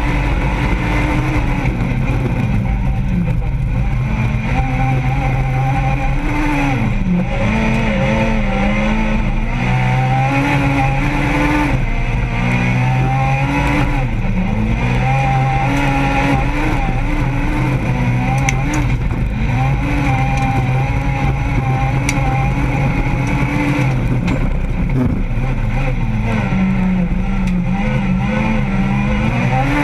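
Renault Clio 2 Super 1600 rallycross car's naturally aspirated 1.6-litre four-cylinder engine at racing revs, heard from inside the cabin. Its pitch repeatedly climbs and drops as it accelerates, shifts gear and lifts.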